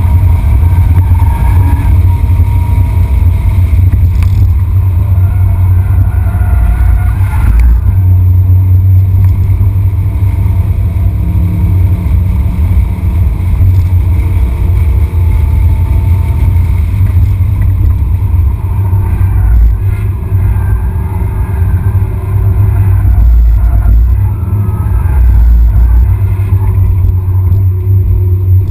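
Loud in-cabin engine and road noise of a BMW 330i (E46) at speed on track, its 3.0-litre straight-six under a heavy low rumble. Near the end the engine chokes from fuel starvation.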